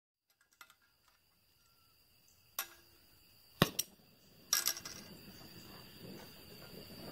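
Small metal clicks and knocks as an oxy-acetylene cutting torch is handled and lit, with a sharp pop about three and a half seconds in. The torch flame then hisses steadily. Crickets keep up a steady high trill throughout.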